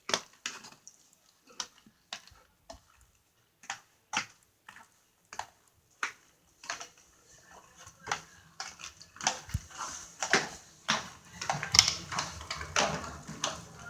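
Irregular light taps and clicks, coming closer together and louder after about eight seconds, over a low steady rumble, with one deep thump about two-thirds of the way through.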